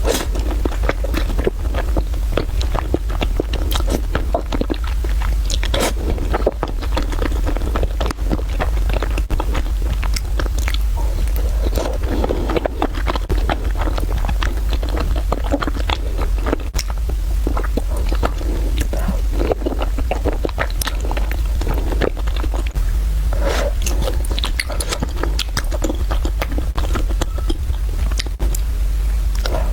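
A person chewing and biting into spicy fried rice noodles, with dense irregular wet clicks and crackles, over a steady low hum.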